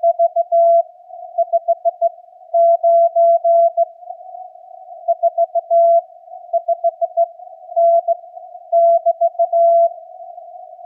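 Morse code (CW) at about 15 words per minute: a single tone of roughly 700 Hz keyed on and off in dits and dahs, with a narrow band of hiss around the tone between characters, as heard through a transceiver's CW filter. The characters make up a 459 signal report with 'RR'.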